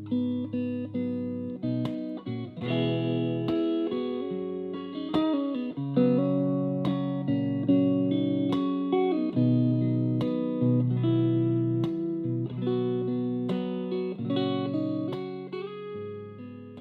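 Instrumental guitar music laid over the footage: a guitar picking single notes and chords, each note ringing and fading, with no singing.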